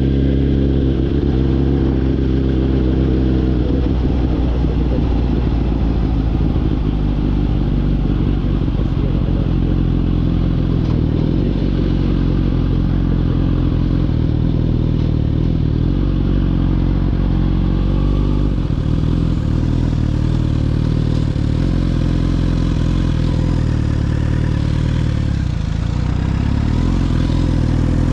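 Suzuki GSX-R1000's inline-four engine running steadily under way, picked up through a closed GoPro case with no external mic, so it sounds muffled. The engine note shifts about four seconds in and again past the middle.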